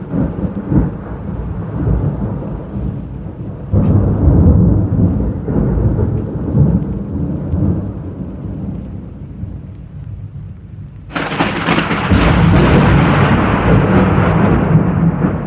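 Thunder rumbling low and loud, with a fresh peal about four seconds in. A sharper, louder crack comes about eleven seconds in and rolls away toward the end.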